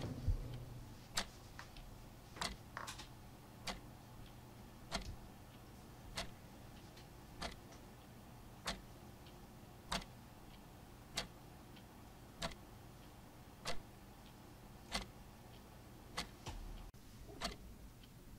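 Slow, even ticking: one sharp tick about every 1.25 seconds, over a faint low hum.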